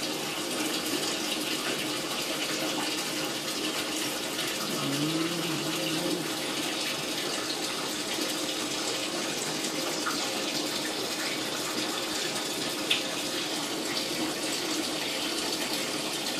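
Steady rushing of running water, with a brief low hum about five seconds in and a single sharp click a few seconds before the end.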